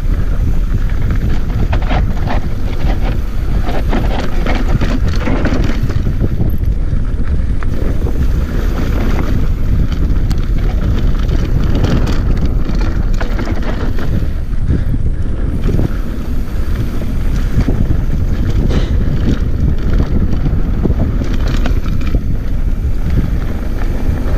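Wind buffeting the microphone of a camera on a mountain bike during a fast dirt-trail descent, a steady loud rumble, with the bike's rattles and knocks over rough ground throughout.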